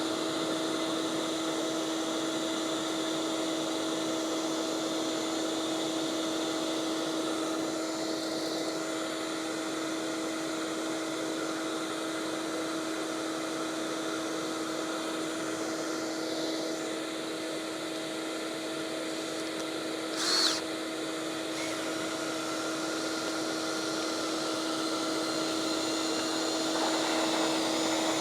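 Shop vacuum running steadily with a constant whine, drawing lint out of a dryer vent duct. A brief sharp click about twenty seconds in.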